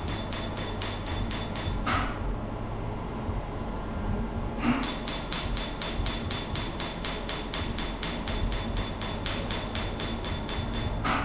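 Tattoo-removal laser firing a rapid train of pulses, each a sharp snap, about four a second, with a faint high tone under them. A short run stops about two seconds in, and a longer run starts after a pause of about three seconds.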